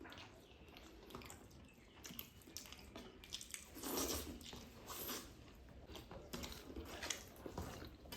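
Faint eating sounds: chewing, with scattered small wet smacks and clicks.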